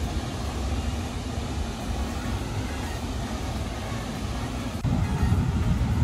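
Steady rushing roar of a large waterfall, stepping up suddenly in loudness near the end.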